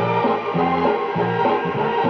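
Guitar-led pop music picked up from a shortwave pirate station and played through a portable shortwave radio's speaker.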